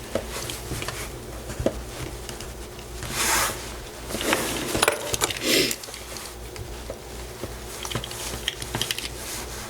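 Small eyeglass screwdriver scraping and prying along the sealed seam of a molded plastic authenticator case: short scraping strokes with small clicks, three louder ones in the middle.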